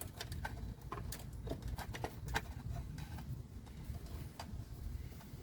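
Irregular light clicks and taps of a trailer wiring harness being handled and untangled, its wires and plastic connectors knocking together, over a low rumble.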